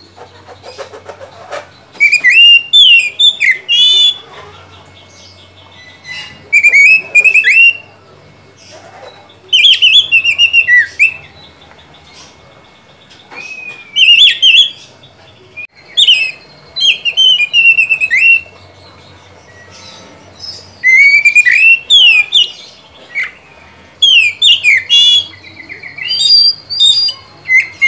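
Male oriental magpie-robin singing in full, loud song. It gives varied phrases of rising and falling whistles and rapid trills, each a second or two long, with short pauses between them.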